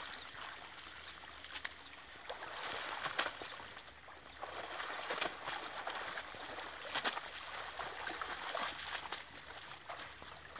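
Water sloshing and splashing around a person wading waist-deep while hauling in and bundling a gill net, with a few sharper splashes among the steady swishing.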